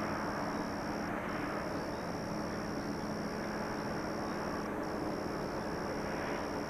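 Distant DD51 diesel-hydraulic locomotive's twin V12 diesel engines running steadily under load as it hauls a long freight train up the grade, a low, even drone.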